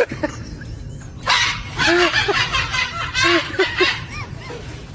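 A dog barking repeatedly, a string of short barks spread over several seconds.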